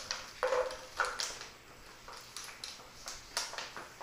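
Pocket bully puppies playing rough: a short yip about half a second in, then scattered light clicks and rattles as they tug and chew a plastic bottle and a rope leash.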